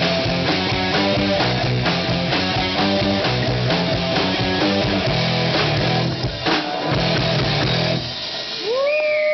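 Live rock band playing loud, with electric guitar and drum kit, until the music stops about eight seconds in; a drawn-out voice follows near the end.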